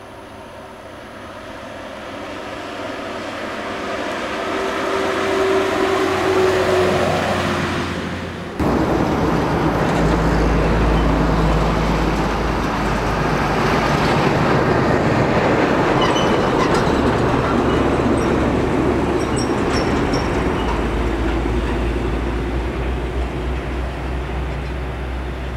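Highway traffic: a truck and a coach bus come closer, their engine and tyre noise rising with a steady engine note. About eight and a half seconds in it cuts abruptly to a louder, steady rush of passing traffic with a low engine drone.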